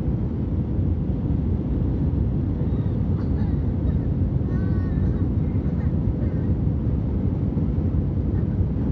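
Steady cabin noise of a jet airliner in flight, heard from a seat beside the wing: an even low rumble of engines and rushing air with a faint steady hum.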